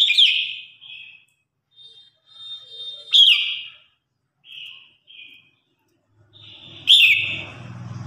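Red-whiskered bulbul singing: three loud, clear song phrases about three seconds apart, each opening with a quick downward-swooping note, with softer chirps in between.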